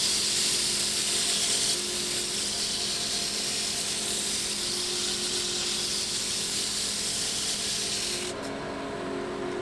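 Abrasive sanding against the inside of a wooden stave drum shell spinning on a lathe: a steady rubbing hiss over the lathe's running hum. About eight seconds in the sanding stops, leaving the lathe turning.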